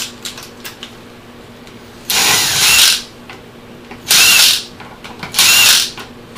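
Cordless impact driver backing out the cam adjuster's already-loosened T30 Torx screws, three short whirring bursts, each with a whine that rises and falls.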